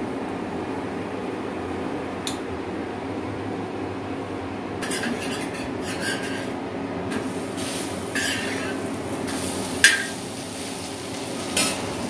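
Steel spoon scraping and clinking against an iron tawa as ghee and garlic are spread on bread slices toasting on it, in short spells from about five seconds in, with one sharp clink near the end as the loudest sound. A steady low hum runs underneath.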